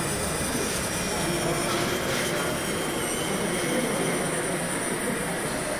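Small electric motor and gears of an RC model Piaggio Ape 50 running as it drives, a steady mechanical running noise with a faint high whine.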